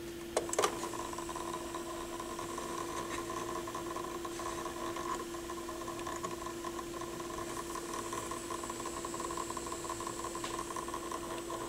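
Pioneer PL-707 turntable motor and mechanism running with a steady hum and a fast rattle whose source has not been found. Two light clicks about half a second in.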